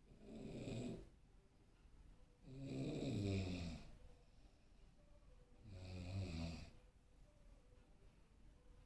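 A sleeping person snoring: three snores about three seconds apart, the middle one the longest and loudest.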